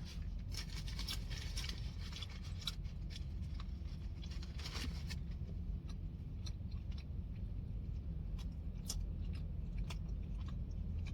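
A person chewing a mouthful of burger close to the microphone: a run of small wet clicks and smacks, busiest in the first five seconds and sparser afterwards, over a steady low hum.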